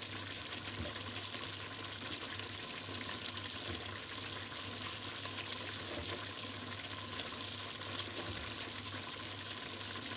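Chicken stew simmering in a steel pot on an induction cooktop: a steady sizzling, bubbling hiss with fine crackles, over a low steady hum.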